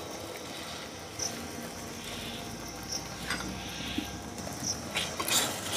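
Beaten egg with chopped onion and chilli sizzling quietly in hot oil on a flat iron tawa as it is poured on, with a few light clicks near the end.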